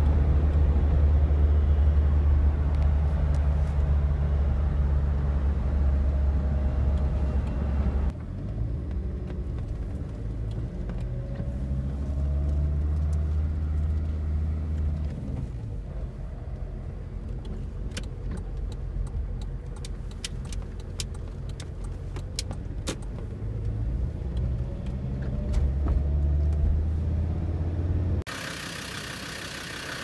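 Land Rover Discovery Series 2 Td5 five-cylinder turbodiesel heard from inside the cab while towing a boat trailer, with a low engine drone that rises and falls with the throttle and the turbo whistle. Light clicks come in the middle, and near the end the sound drops suddenly to a quieter, steady idle.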